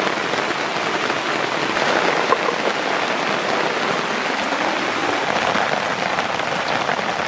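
Steady rain falling on leafy forest foliage: an even hiss that hardly changes in level.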